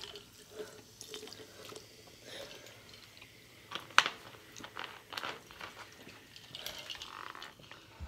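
Ice water being drunk from a glass mason jar: ice cubes clink against the glass between gulps and small slurps, with the sharpest clink about halfway through.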